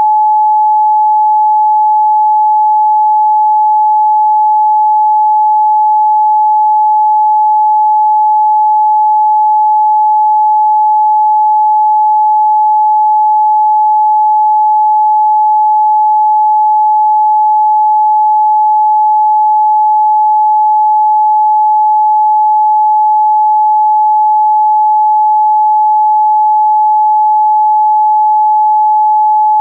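Pure 855 Hz sine test tone, one steady unwavering pitch with no harmonics or other sound.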